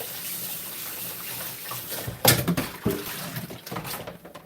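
Water running steadily from a kitchen tap, with a sharp knock a little over two seconds in and a lighter one shortly after.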